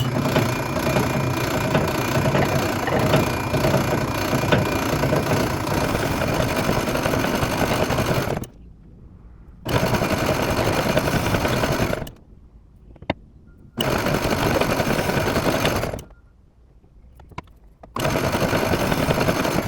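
Drill press running and drilling into a block of macadamia wood, in four separate runs that each start and stop abruptly, the longest about eight seconds.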